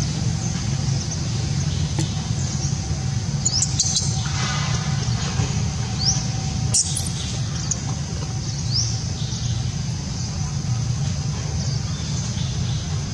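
A bird repeats a short, high, rising chirp every two to three seconds over a steady low rumble.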